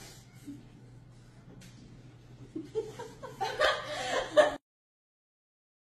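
Faint steady hum, then about two and a half seconds in a person laughing in bursts, which cuts off suddenly.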